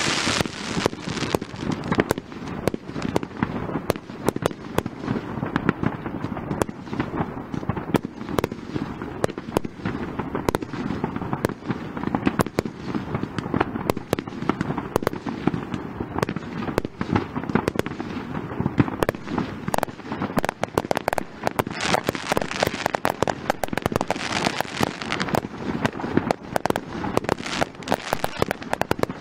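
Fireworks display: a continuous rapid rattle of sharp bangs and crackles from bursting shells, many cracks a second. It grows denser and louder in the last third.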